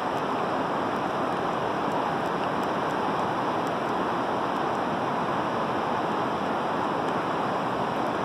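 Steady rush of river current flowing around wading legs and over riffles, an even hiss that keeps the same level throughout.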